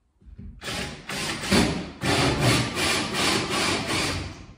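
A 68 mm hole for a switch back box being cut through plasterboard with a hand cutter, in rhythmic scraping strokes about three a second that start about half a second in.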